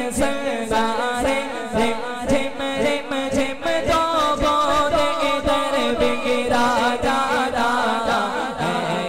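A man singing a naat (Islamic devotional song) in long, sliding melodic phrases without a break.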